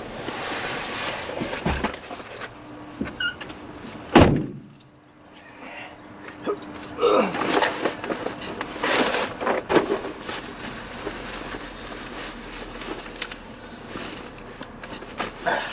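A car door shutting with a single heavy thunk about four seconds in, among rustling and handling noise.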